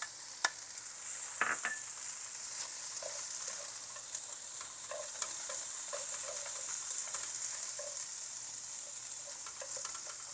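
Clear noodles with carrots, onions and snow crab frying in oil in a pan: a steady sizzle, with scattered clicks and scrapes of the utensil against the pan as it is stirred.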